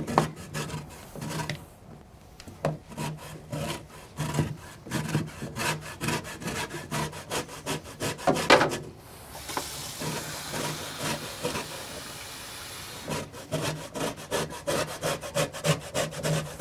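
Lemon being zested on a fine grater: quick, rhythmic rasping strokes of peel against metal, broken by a few seconds of steady hiss in the middle.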